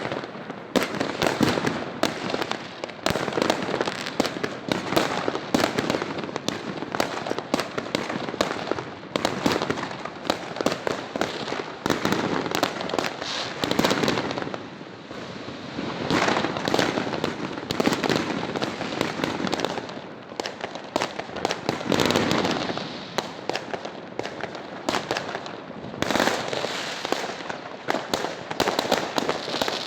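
Fireworks going off in a dense, continuous barrage of rapid bangs and crackles, easing briefly three times.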